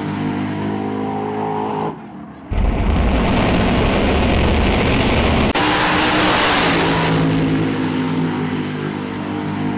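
Supercharged drag-racing pickup truck's engine at full throttle, a steady high engine note. Midway it gives way to a much louder, rougher blast with heavy low rumble as the truck launches hard with its front wheels up, before the steady engine note returns.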